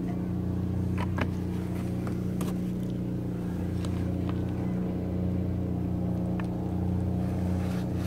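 An engine running steadily nearby, a constant even hum, with a few faint light clicks over it.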